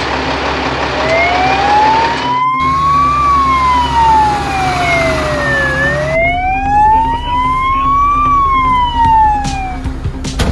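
Fire truck siren on a slow wail, its pitch rising and falling twice, about five seconds to each cycle, starting about a second in.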